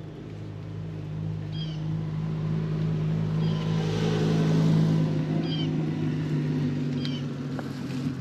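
A motor's steady low hum swells to a peak about halfway through and then eases off. Over it, a small bird gives a short high chirp every couple of seconds.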